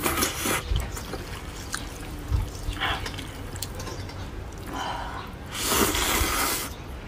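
A person slurping spicy fried noodles: wet sucking slurps, a short one at the start, another about three seconds in, and a longer, louder one near the end, with quieter chewing between.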